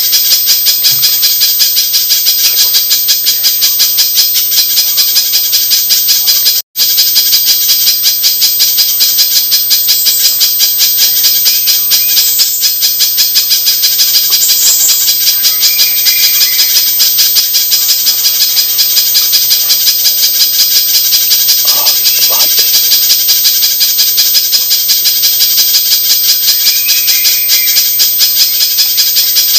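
Spiderhunter (pijantung) calls from a bird-lure recording: a loud, fast, unbroken series of high chips, with a brief cut to silence about seven seconds in.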